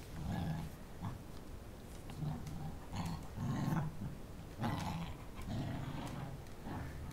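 Puppies play-fighting, giving repeated short, low growls with a few sharper yelps and scuffles in between.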